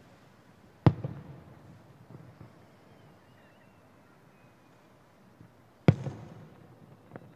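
Fireworks shells bursting about 1 km away: two sharp booms, about a second in and near six seconds, each trailing off in echoes, with a smaller crack just after seven seconds.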